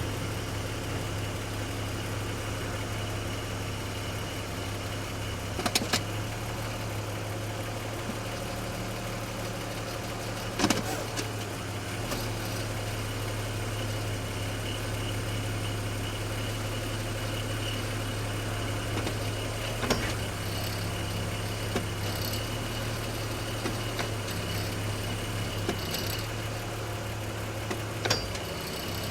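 BMW X5 E53 idling steadily while the automatic transmission is shifted between park, drive and reverse, with a handful of sharp ping/clunk noises from the driveline, the loudest about a third of the way in. The clunk comes on shifting into reverse, and a forum member takes it for a worn guibo (driveshaft flex disc).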